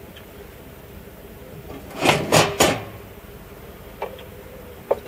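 Things being handled in a box or bin on the ground: three loud clunks in quick succession about two seconds in, then two light clicks near the end.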